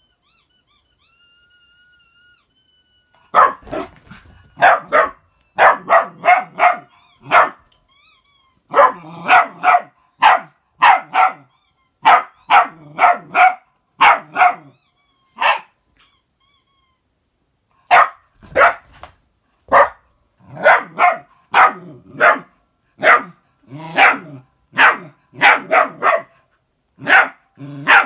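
A small terrier barking excitedly in quick runs of several sharp barks, with a couple of short pauses. For the first three seconds, before the barking starts, there is only a faint high warbling tone.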